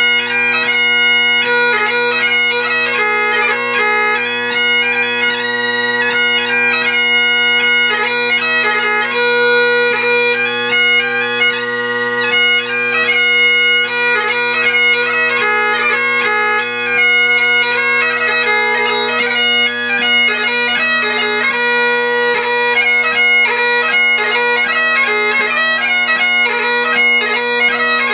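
Great Highland bagpipes, a set of Inveran drones with an African blackwood chanter, playing a hornpipe: the drones hold a steady low chord under a quick, ornamented chanter melody.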